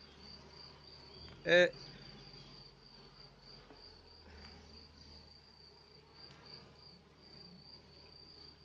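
Crickets chirping in a steady, evenly pulsing high trill, with honey bees humming around an open hive. A single brief loud sound breaks in about one and a half seconds in.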